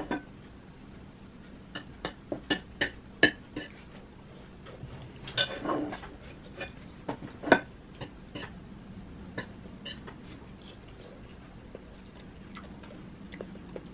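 Spoon and fork clinking and scraping against a ceramic plate during a meal, in scattered sharp clinks. The loudest comes about seven and a half seconds in.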